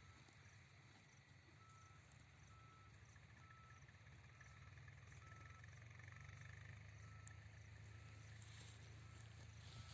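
Near silence: a faint steady low hum with a faint short tone repeating at an even pace.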